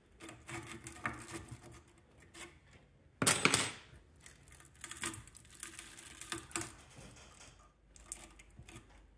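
Irregular metallic scraping, rustling and clinking from handling the partly cut copper windings of an electric fan motor, with one louder scrape about three seconds in.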